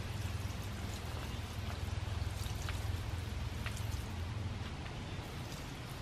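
Water pouring from a watering can onto a potted fern, a steady trickling splash.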